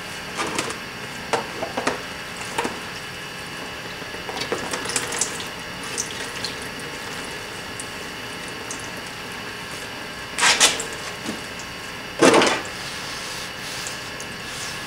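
Water splashing and dripping into a plastic tub as a wet rag is dipped and wrung out, with a few short handling rustles; the two loudest splashes come a little past the middle. The rags are soaked to keep the heated rod cool.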